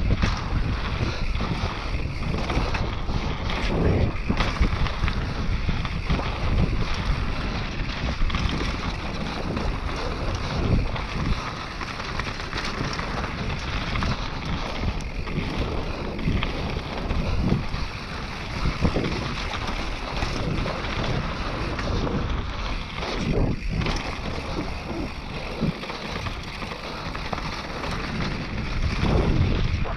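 Wind rushing over the camera microphone while riding a mountain bike downhill, with tyres running on dirt and the bike rattling over bumps in many short knocks.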